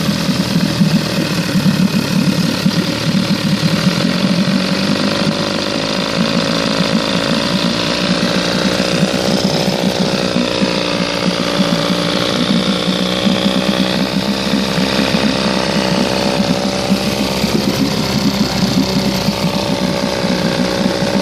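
1967 Evinrude 18 hp two-cylinder two-stroke outboard idling steadily, its speed drifting slightly up and down: a sign of the air leak that the owner later traced to loose intake manifold bolts.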